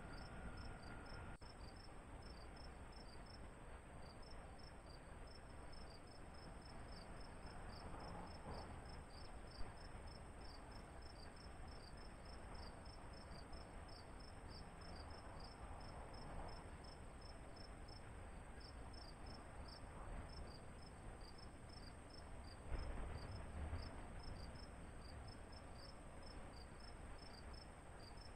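Faint insect chirping, a steady run of short, evenly spaced high chirps, over a low outdoor rumble. A brief thump comes about three-quarters of the way through.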